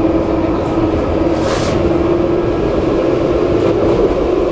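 Tram running on its rails, heard from inside the passenger car: a steady rumble with a constant hum, and a short hiss about a second and a half in.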